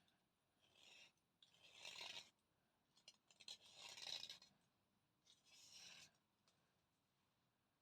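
Thick slate pencil rubbed or scraped dry in about four separate rasping strokes, each under a second long, with short quiet gaps between them.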